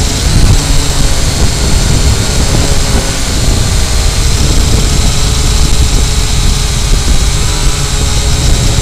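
Syma X8W quadcopter's four motors and propellers whining steadily in flight, with heavy wind buffeting on the onboard camera's microphone.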